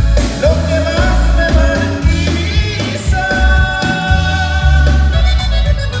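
Conjunto band playing live: button accordion, saxophone, bass guitar, guitar and drums, with a steady bass and drum beat under a held melody line that slides up about half a second in.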